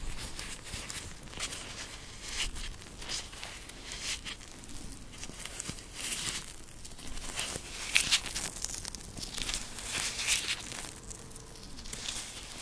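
White rubber gloves rubbing and crinkling as gloved fingers and hands work close to the microphone: a string of irregular short scratchy rustles, loudest about eight seconds in.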